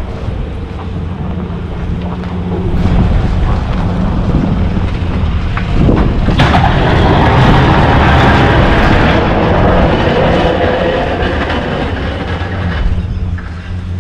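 A snow-plowing vehicle's engine running steadily. From about six seconds in, a louder rushing noise joins it and lasts until near the end.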